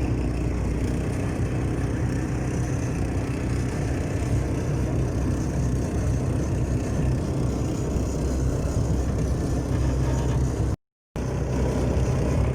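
Small petrol engine of a mowing vehicle running steadily under load while towing a trailer, with a continuous low drone and road noise; it is rattling a lot. The sound drops out for a split second near the end.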